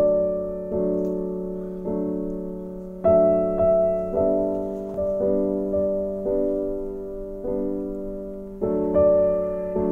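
Slow piano music: notes and chords struck about once a second, each fading before the next, with louder chords about three seconds in and near the end.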